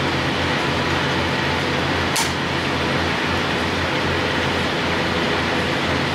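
Fuel being pumped through a nozzle into a semi truck's tank: a steady low hum with an even rushing noise, and a short click about two seconds in.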